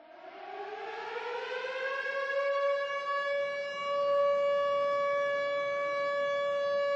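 Air-raid siren winding up: a single tone that rises in pitch over the first two seconds, then holds steady and grows louder.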